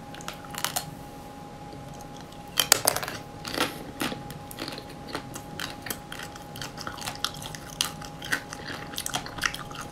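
Close-miked biting and chewing of an ice cream bar with a crisp pink shell coating. A loud crackling bite comes about two and a half seconds in, followed by steady chewing with many small crunches as the frozen coating breaks up.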